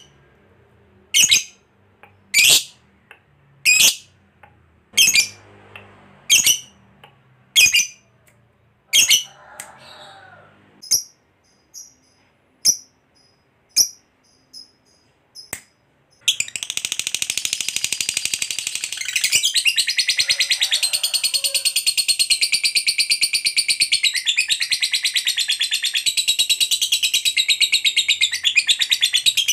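Lovebird giving single sharp, high chirps about every second and a half, then about halfway through breaking into a long, unbroken, very rapid chattering trill: the long ngekek that keepers prize and play to other lovebirds to set them singing.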